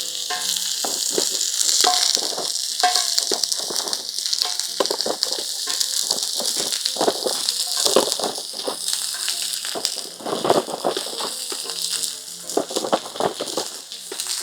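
Thin-sliced frozen pork belly sizzling on a hot griddle over a wood fire: a steady hiss with dense crackling and spitting throughout.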